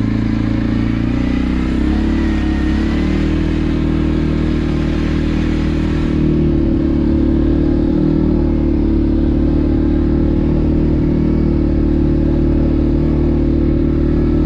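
CFMoto 450L ATV engine running under way with a steady drone. Its pitch steps up about two seconds in, and it gets a little louder around six seconds in.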